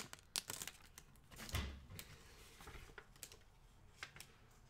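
Faint scattered clicks and short rustles of a plastic snack-chip bag and a paper booklet being handled, with a soft thump about one and a half seconds in.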